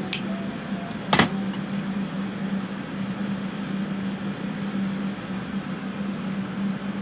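Fume-extraction fans running with a steady hum and hiss. A sharp tap sounds about a second in.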